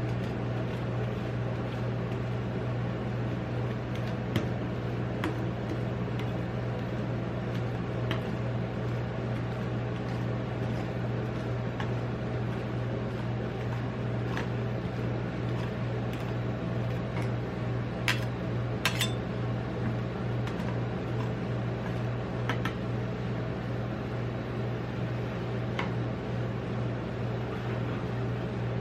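Metal spatulas scraping and tapping on the steel cold plate of a rolled ice cream machine, with scattered sharp clacks, the loudest a pair about eighteen seconds in. Under them runs the machine's steady low hum.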